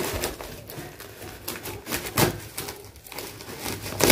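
Plastic wrap and packing tape on a cardboard box being cut and picked at with a small blade: irregular crinkling, scratching and ticking.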